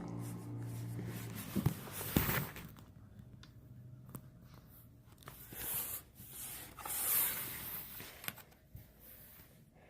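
Rustling and scraping handling noises in a few short swells, with several sharp clicks between them.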